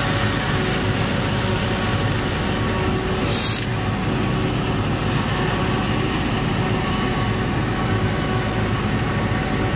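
Krone Big X 650 self-propelled forage harvester working, its X-Disc header cutting standing cereal crop: a steady machine drone with a constant whine of held tones. A short hiss cuts in high up about three seconds in.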